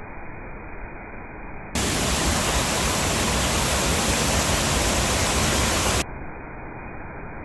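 Steady rushing noise of a waterfall's falling water, muffled and dull. About two seconds in it cuts abruptly to a louder, brighter hiss, which stops just as suddenly about four seconds later and leaves the muffled rush again.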